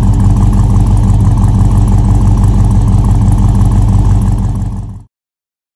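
1968 Chevy C10 engine idling steadily, heard right at the tailpipe tip; the sound cuts off suddenly about five seconds in.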